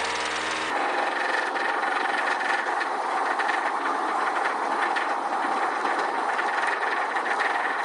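Car engine running with a loud, rapid clatter of tapping and knocking, the kind of engine noise that marks a bad engine and a car not to buy.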